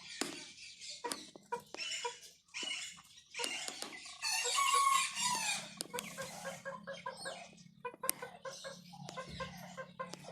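Chickens clucking in many short, repeated calls, with one louder, longer call about four seconds in.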